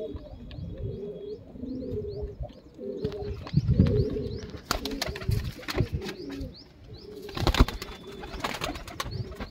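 Domestic Punjabi flying pigeons cooing over and over in low notes. A few sharp clatters come about halfway through, and a louder one about three-quarters of the way in.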